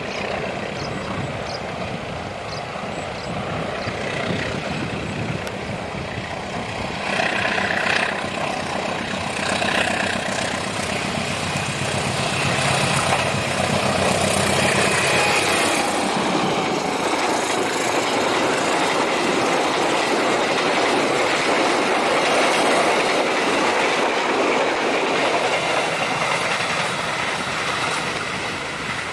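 KAI diesel-locomotive-hauled passenger train passing on the line, the locomotive's engine rumbling first, then the coaches' wheels running over the track in a steady noise that grows louder about midway and eases near the end.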